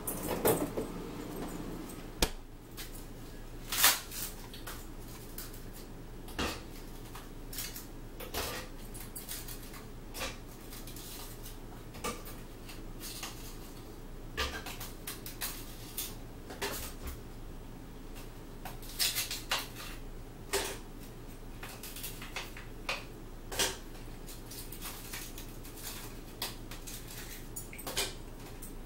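Scattered light clicks and knocks of plates and small objects being handled at a table, over a steady low hum.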